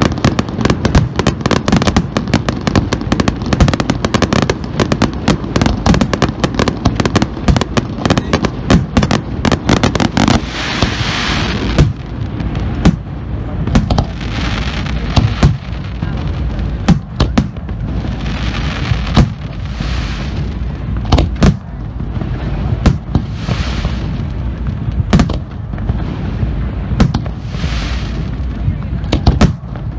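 Fireworks display: for about ten seconds a dense, rapid barrage of bangs and crackles, then separate bangs every second or so, with a short rushing hiss swelling up every few seconds.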